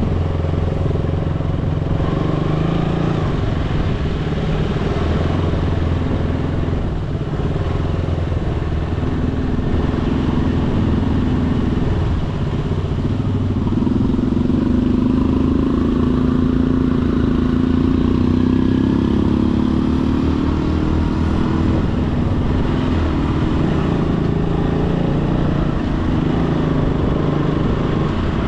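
Motorcycle engine running while riding, its note climbing about halfway through and easing back down near the end, over steady road noise.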